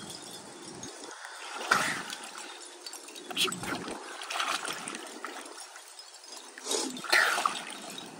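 Swimming pool water sloshing and lapping close to the microphone, with several short splashes from swimmers moving through it.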